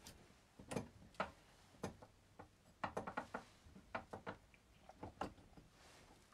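Faint, scattered small clicks and taps, some in quick little runs, from small parts being handled on an RC car's front suspension as camber shims are removed and fitted at the upright.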